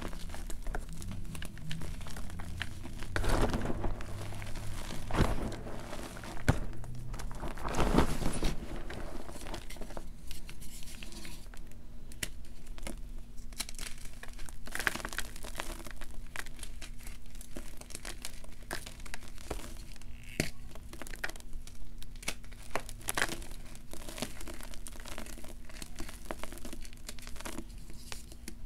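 Blocks of gym chalk being crushed and crumbled between the fingers into a bowl of loose chalk powder: dense, irregular crunching and crumbling, with louder crushes in the first eight seconds or so.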